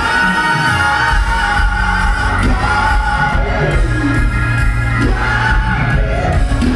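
Live soul band and male singers heard from the audience seats of a large concert hall, long held vocal notes over the band, with crowd noise underneath.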